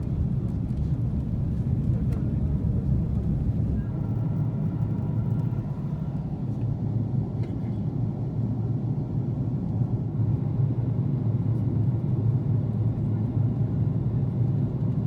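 Airliner cabin noise inside an Airbus A330-300 in flight: a steady low rumble of engines and airflow. About four seconds in, the deepest part of the rumble thins and a faint steady whine joins it.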